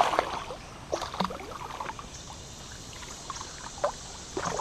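Water splashing and trickling beside a kayak as a hooked smallmouth bass is played out alongside, with a few short sharp knocks and splashes scattered through, the loudest right at the start.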